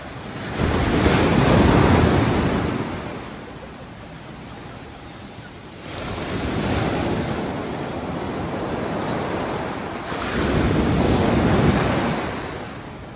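Ocean waves breaking and washing up the shore, swelling loud three times: a big surge near the start, a smaller one in the middle and another big one near the end, with a softer rush between.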